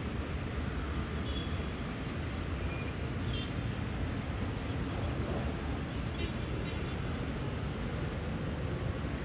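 Steady low background rumble, like wind or distant traffic, with a few faint, short bird chirps scattered through.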